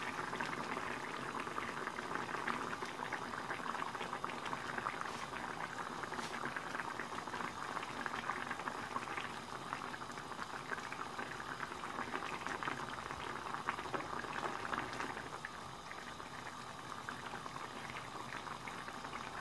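Thin puti fish curry gravy bubbling at a hard boil in a frying pan: a steady, dense crackle of popping bubbles.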